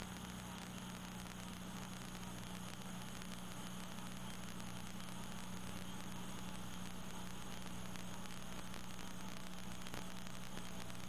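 Steady hiss with a low, constant electrical hum: the background noise of a broadcast audio feed, with no voices on it.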